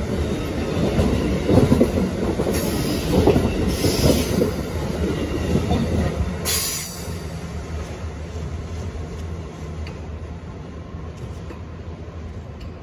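Amtrak Northeast Regional passenger cars rolling past on a curve: a loud rumble and clatter of steel wheels on rail, with a few brief high wheel squeals. About seven seconds in the last car goes by, and the sound drops to a fainter rumble as the train pulls away.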